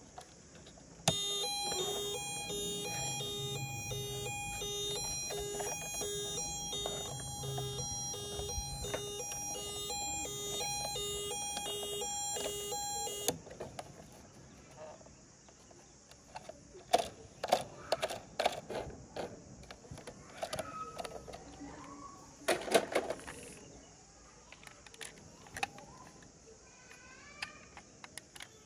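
Toy ambulance's battery-powered electronic sound module playing its siren: a loud, fast-repeating beeping pattern that starts about a second in and cuts off abruptly after about twelve seconds. After it come scattered plastic clicks and knocks as the toy is handled.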